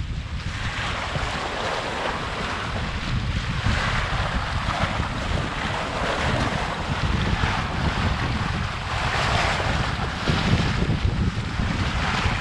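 Bow wave and water rushing and splashing along the hull of a Contessa 26 sailboat under way, swelling in surges every couple of seconds, with wind buffeting the microphone.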